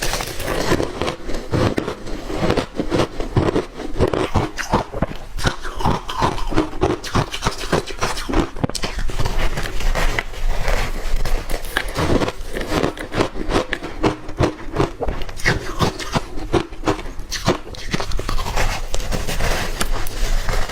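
Ice chunks coated in matcha powder being bitten and chewed, a dense run of rapid, crackling crunches.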